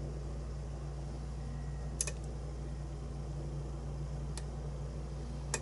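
Lock pick working the pins of a pin-tumbler cylinder during single-pin picking: three light, sharp clicks spread a couple of seconds apart, over a steady low hum.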